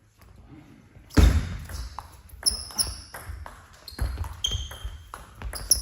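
Table tennis rally: the celluloid ball knocking off the bats and table in quick, irregular clicks, with a loud knock about a second in and short high pings between the strokes.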